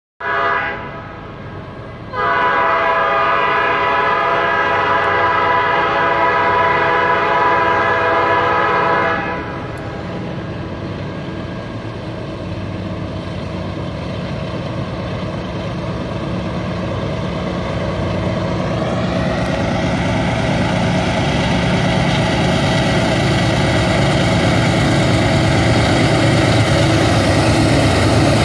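Diesel locomotive air horn sounding a chord: a short toot, then one long blast of about seven seconds. After it the locomotives' diesel engines and the rolling train rumble, growing steadily louder as the freight approaches, with a whine rising in pitch about two-thirds of the way in.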